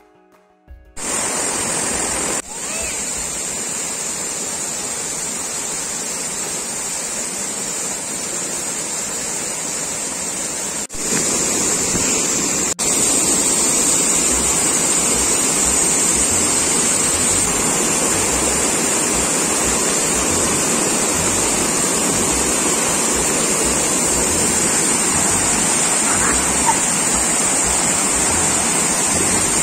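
Rushing water, loud and steady: a fast, silt-laden river running, then a waterfall pouring down and splashing onto people standing in it. The sound jumps in level a few times and is louder from about thirteen seconds in.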